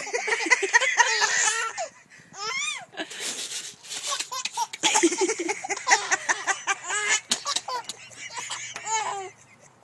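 A baby laughing in repeated bursts of giggles and belly laughs, with popcorn kernels being shaken and rattling in between.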